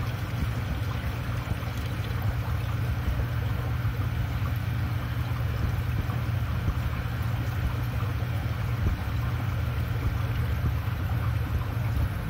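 Aquarium filter equipment running: a steady low hum with water bubbling and trickling.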